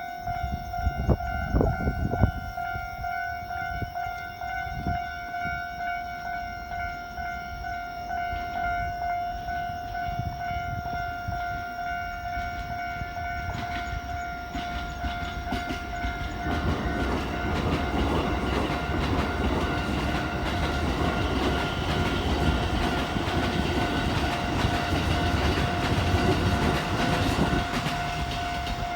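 Level-crossing warning bell ringing steadily, with a few knocks near the start. About halfway through, a Keikyu electric train runs past over the crossing with a loud rumble, and the bell stops at the very end.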